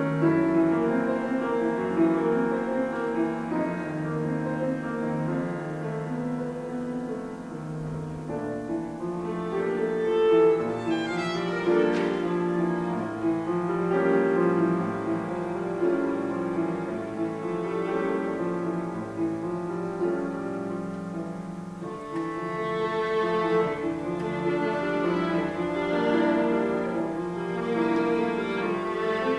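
Violin and grand piano playing a classical piece together as a live duet.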